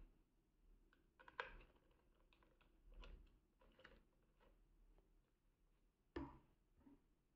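Faint clicks and light scraping as a small screwdriver works a screw out of the plastic radiation shield of an Ecowitt WittBoy weather station. The two sharpest clicks come about a second and a half in and about six seconds in.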